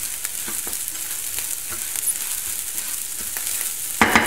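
Raw rice and browned vermicelli being toasted in oil in a frying pan and stirred with a wooden spatula: a steady light sizzle with the grains scraping and ticking against the pan. About four seconds in comes a louder burst of scraping.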